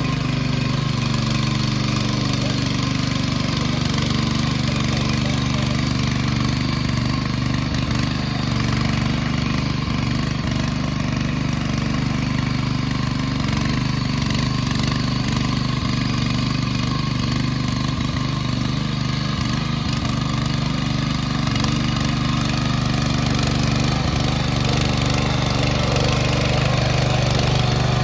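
Walk-behind rotary tiller's small engine running steadily as its tines churn through waterlogged mud.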